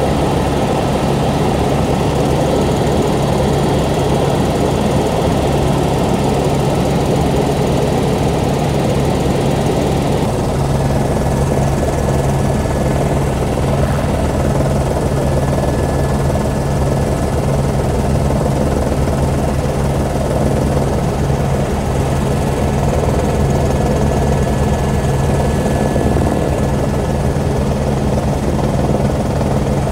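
Helicopter in flight heard from inside the cabin: a loud, steady drone of rotor and engine that does not change in level.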